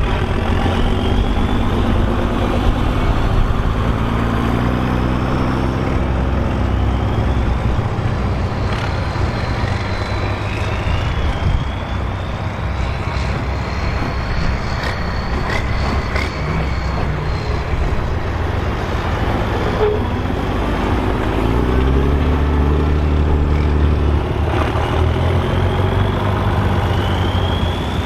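Volvo BM 814 tractor's diesel engine working hard under load, pulling a six-furrow plough. It fades somewhat in the middle and comes back stronger about twenty seconds in, with a faint high whistle rising and falling above the engine note.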